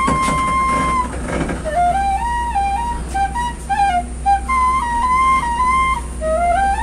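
Side-blown bamboo flute playing a melody: one long held note, then a run of short stepping notes with quick slides between them.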